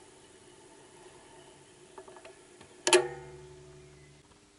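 Belt-drive turntable's velocity-trip shut-off mechanism tripping as the tone arm is pushed to the last groove. There are a few faint ticks, then one sharp click about three seconds in that rings briefly, with a low hum under it for about a second before it stops.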